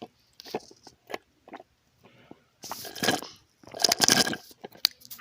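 Close-miked crunchy food being bitten and chewed: a few short, sharp crunches, then two longer, louder crunching bites about three and four seconds in.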